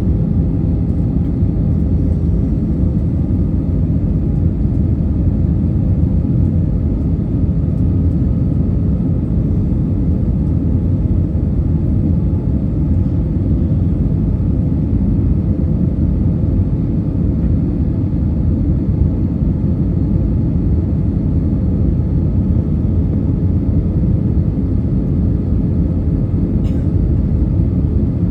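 Steady low rumble inside an Airbus A320's passenger cabin, from the engines and the airflow, with a faint hum of tones over it and one small click near the end.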